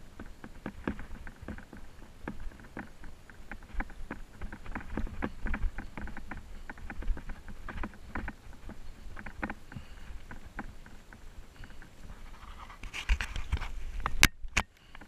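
Bicycle rattling and knocking irregularly as it rides over bumpy grass and dirt, with wind rumbling on the microphone. Near the end there is a louder patch and a sharp click, after which the sound briefly drops out.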